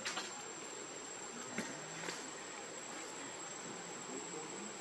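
Steady insect chorus with a continuous high-pitched trill, and a few faint clicks.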